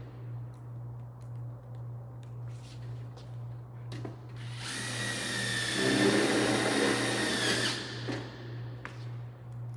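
A cordless drill runs with a steady whine for about three seconds midway, driving a screw through the light-gauge steel track into a steel stud. Light clicks of handling come before and after it, over a steady low hum.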